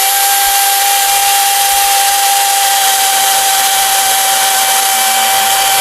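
DeWalt DCM575 60V FlexVolt brushless cordless chainsaw running at full speed: a loud, steady electric whine that holds one constant pitch over the hiss of the chain.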